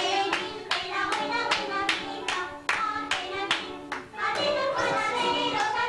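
Several people clapping in time, about three claps a second, over music with singing.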